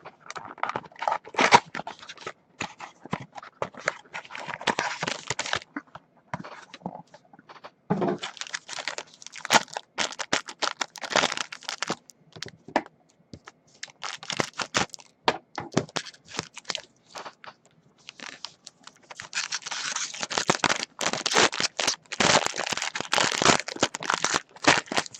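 Packaging of a Topps Museum Collection trading-card mini box being torn open and crinkled. It comes in irregular bursts of tearing and crackling with sharp clicks, busiest in the second half.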